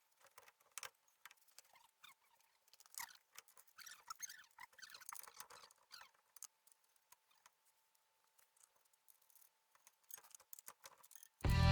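Faint scattered metal clicks, taps and light squeaks of hand tools at work as a new ball joint is fitted into a car's front suspension. Guitar music comes in near the end.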